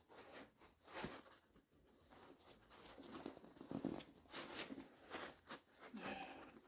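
Faint rustling and rubbing of a dry suit glove and its insulated insert as a hand is worked into it, in scattered soft scrapes.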